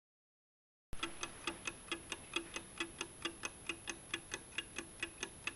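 Clock ticking, about four ticks a second, starting about a second in after dead silence, with a faint steady high-pitched whine behind it.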